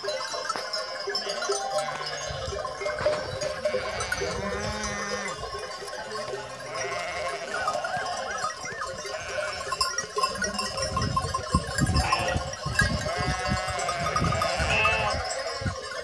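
A large flock of sheep bleating, many calls of different pitches overlapping one another. Low thumps on the microphone come in during the last five seconds.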